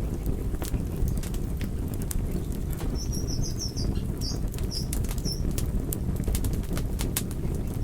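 Wood fire in a fireplace, crackling and popping with many sharp irregular snaps over a steady low burning rumble. A few brief high-pitched chirps sound about halfway through.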